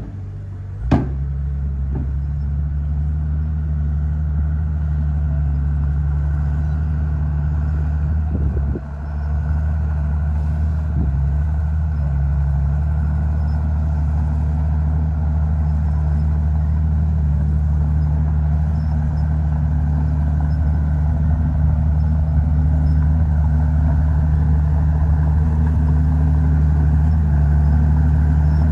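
Heavy diesel engine of earthmoving machinery running steadily and loudly, with a low, even drone. Two sharp knocks come in the first second, and the engine sound dips briefly about nine seconds in.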